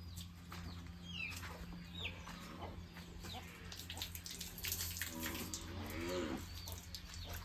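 Water from a hose splashing on a car, with a couple of short bird chirps early and an animal calling for about a second, five seconds in.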